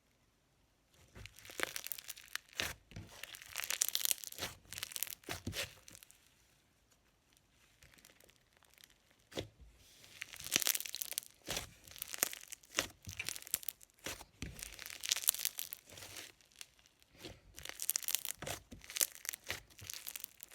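Cotton candy fizz slime being poked and squished by hand, giving irregular runs of crackling bubble pops. There is a quiet pause of a few seconds partway through.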